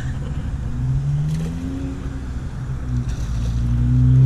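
Road traffic: a car engine passing, its hum rising in pitch and growing louder near the end.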